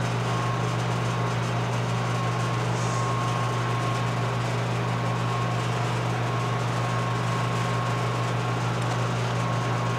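Steady low electrical or mechanical hum, even in level throughout, with a faint high tone near 1 kHz that comes and goes.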